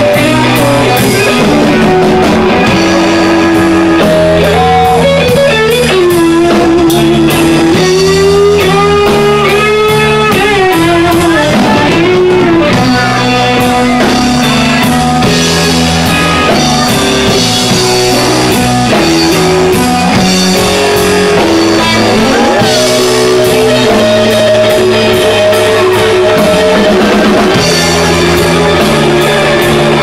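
Live blues band playing an instrumental passage: an electric guitar lead with bent, sliding and held notes over a drum kit and a guitar backing.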